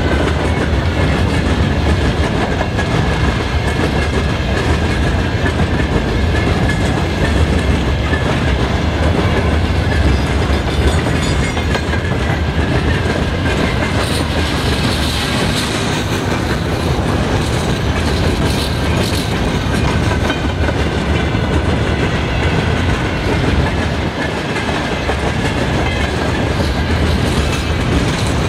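Freight train of open gondola wagons passing close by at speed: a loud, steady rumble and rattle of steel wheels on the rails, with a faint high ringing tone above it.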